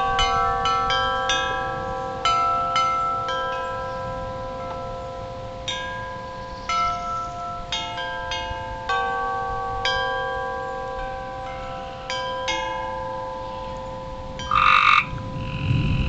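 Wind chimes ringing in the wind before a storm, many notes struck at uneven times and ringing on over one another, over a low rumble of wind. About fifteen seconds in, a short, loud rasping sound.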